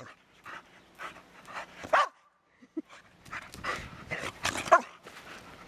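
Dog barking in a string of short barks, the loudest about two seconds in and another near the end.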